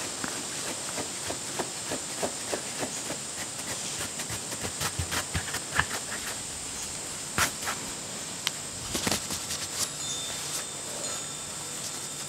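Rubber brush stroking a short-haired dog's coat: irregular soft brushing strokes over a steady hiss, with a few sharper clicks about halfway through.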